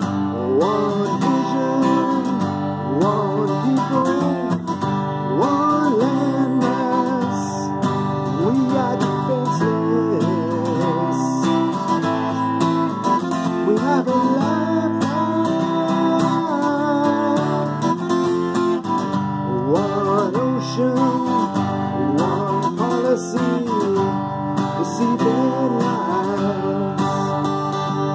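Steel-string acoustic guitar strummed in steady chords, with a man's voice singing in places.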